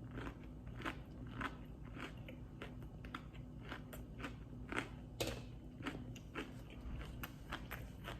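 A person chewing crunchy food close to the microphone, a crisp crunch about every half second, over a faint low hum.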